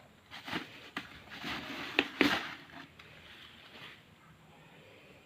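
Handling noises: a few light knocks and clicks with rustling over the first three seconds, then it goes quiet.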